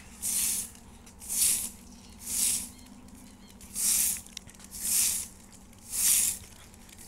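A long-handled broom of stiff stalks swishing across a dusty dirt path in six sweeping strokes, about one a second.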